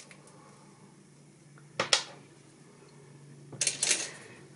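Small glass crystal beads and metal jewelry pieces clicking against each other and the tabletop as they are handled and set down: two sharp clicks about two seconds in, then a quick run of small clicks near the end, over a faint steady hum.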